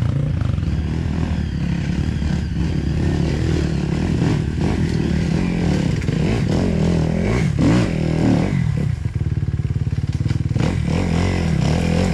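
Off-road motorcycle engines running, one steady and others revving up and down as trail bikes climb a rocky dirt trail, with the nearest bike getting louder near the end.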